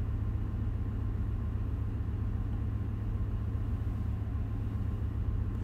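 Steady low drone of a ship's engine-room machinery, unchanging throughout.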